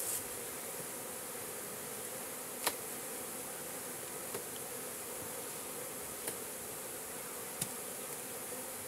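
Steady hum of a mass of honey bees buzzing around an opened hive, with a few brief sharp clicks spread through it.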